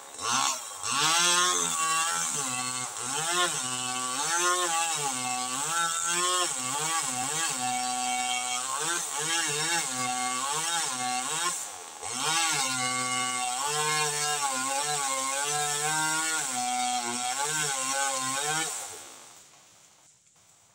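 NW258 two-stroke petrol chainsaw cutting into a tree trunk, its engine pitch rising and falling again and again as the throttle is worked. Near the end it winds down and stops.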